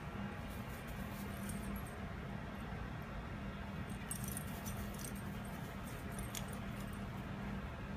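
Faint jingling and rustling from a pit bull mix playing with a toy on grass, about four to five and a half seconds in, over a steady outdoor background with a low hum.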